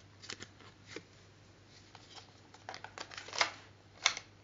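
Hand-handling noise: a scatter of soft clicks and short rustles, busiest about three seconds in, with a sharp click near the end.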